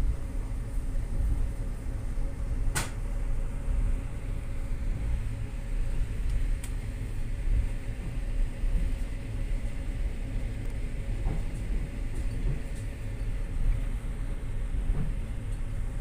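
Passenger train running over the rails, heard from inside the carriage: a steady low rumble, with one sharp click about three seconds in.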